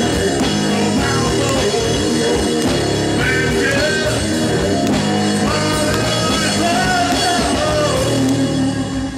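Live punk rock band playing: electric guitar, bass guitar and drum kit with a sung lead vocal. The level starts to fall near the end.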